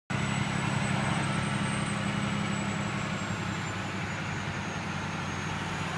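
Steady engine drone and road noise heard inside a moving truck's cab, with a faint high whine.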